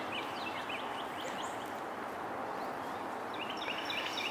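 Birds chirping, many short quick calls one after another, over a steady outdoor background hiss. The calls come thicker near the end.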